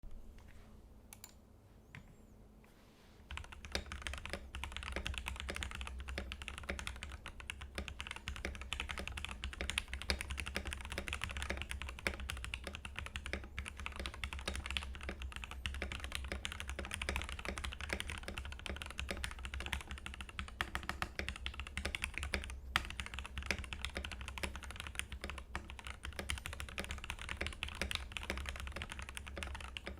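Ducky One2 SF mechanical keyboard with Gateron Milky Yellow linear switches, lubed with Krytox 205g0 and filmed, with lubed, Holee-modded stabilizers and EVA case foam, being typed on fast and continuously. The typing starts about three seconds in, after a few lone key clicks.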